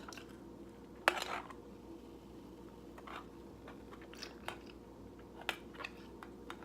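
Someone biting into crunchy food, with one sharp crunch about a second in, then a few soft chewing crunches and mouth clicks.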